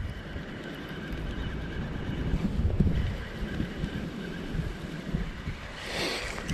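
Wind buffeting the microphone while a spinning reel is cranked to retrieve a lure, with a brief whoosh about six seconds in.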